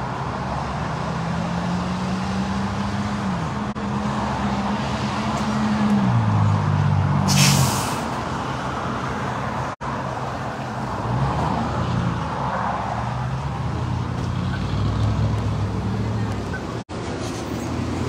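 Road traffic on a busy multi-lane street: vehicle engines running and passing, their pitch rising and falling, over steady tyre and road noise. A short loud hiss comes about seven and a half seconds in.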